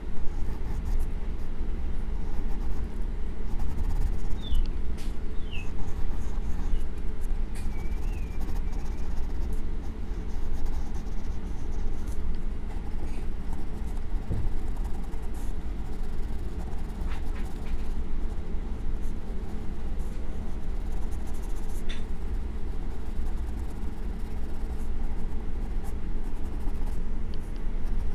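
Soft graphite pencil shading on sketch paper: continuous scratchy strokes over a steady low rumble, with a few faint short chirps about four to nine seconds in.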